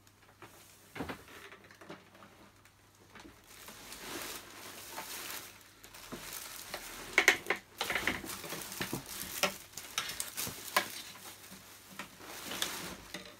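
Plastic packing material crinkling and rustling inside a cardboard box, with short knocks and bumps as a vacuum cleaner is handled into it. Fairly quiet for the first few seconds; the rustling and knocks pick up after about three seconds, the loudest knock about seven seconds in.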